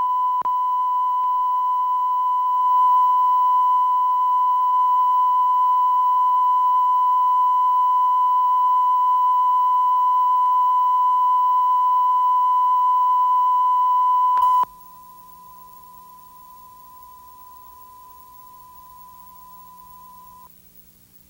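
Steady single-pitch line-up test tone played with colour bars, with a brief click just after it begins. About fourteen and a half seconds in it drops suddenly to a much fainter tone, which stops shortly before the end.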